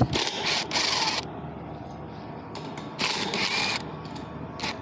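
Cordless drill-driver backing out the mounting screws of a condenser fan motor in short runs: a few quick bursts at the start, then a longer run about three seconds in.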